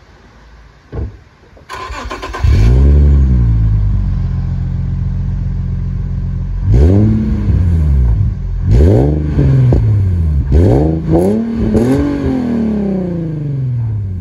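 A thump, then the starter cranks briefly and an Infiniti G35's 3.5-litre V6 catches with a rev flare and settles to idle, heard at the tailpipe of a new Magnaflow exhaust. From about seven seconds in the engine is blipped several times, each rev rising and dropping back, and the last falls away slowly near the end.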